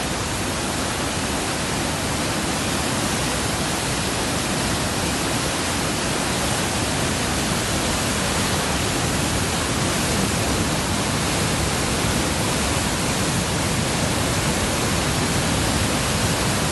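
Brown floodwater of a swollen river rushing past in a steady, loud torrent.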